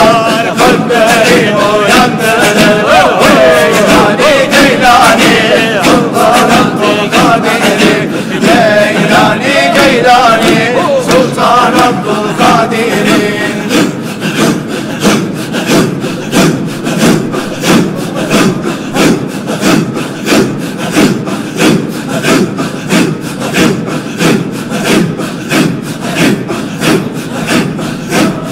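A circle of men chanting zikr together in a steady, breathy rhythm. A solo voice sings a melody over the chant for roughly the first dozen seconds, then only the pulsing group chant continues, at about one and a half beats a second.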